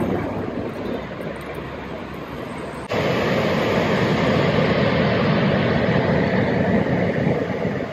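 Road traffic on a city bridge, with a bus going by. About three seconds in it cuts abruptly to the steady rush of heavy whitewater at the Spokane River's falls, pouring over a dam below the bridge.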